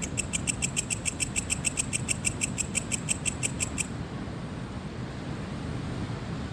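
Cricket chirping in a fast, even pulse train, about six pulses a second, which stops about four seconds in. A low, steady rumble of ocean waves runs underneath.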